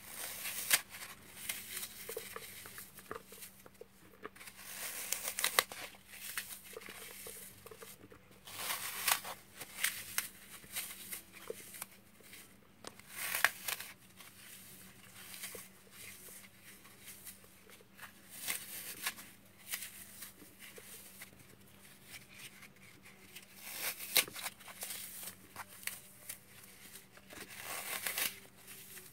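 Dry, unsoaked green floral foam being crushed and broken apart by hand, crumbling with crunchy crackles in irregular bursts, some pieces coated in cleaner paste.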